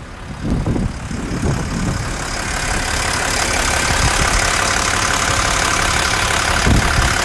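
Volvo L90G wheel loader's diesel engine running with its hydraulic cooling fan blowing air, the whoosh growing louder over the first couple of seconds and then holding steady.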